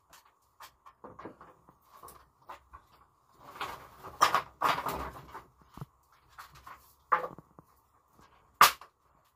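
Dry sticks and branches being handled and snapped, with several sharp cracks, the loudest near the end, and rustling of brushwood in between.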